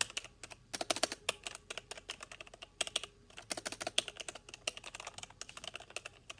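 Fast typing on a non-mechanical Logitech gaming keyboard with exposed keys: a dense run of crisp keystroke clicks that sound like a mechanical keyboard, with a short lull about three seconds in.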